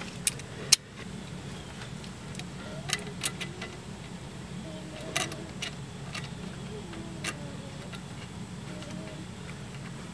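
Scattered sharp metallic clicks and clinks of a brake banjo bolt, washers and hand tools being handled at a brake caliper, over a steady low hum. The loudest click comes in the first second.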